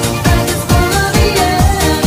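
Background electronic pop music with a steady kick drum, about two beats a second, under a gliding melody.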